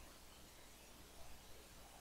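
Near silence: a faint steady hiss with a low hum underneath.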